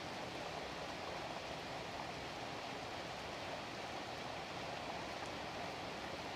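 Steady, even hiss of a storm, with rain and wind blending into one continuous noise.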